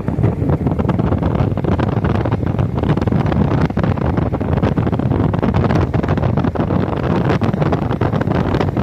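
Steady road and wind noise of a car being driven, heard from inside the cabin, with scattered faint clicks.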